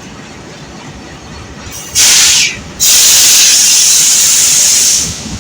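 Compressed air venting from a train's air system in two loud hisses: a short one about two seconds in, then a longer one lasting about two seconds.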